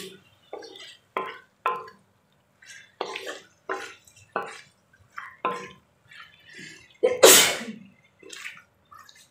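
A metal spatula scraping and knocking against a kadhai as raw chicken is stirred into frying spices, in short strokes about every half second. About seven seconds in there is one sudden loud burst of noise lasting under a second.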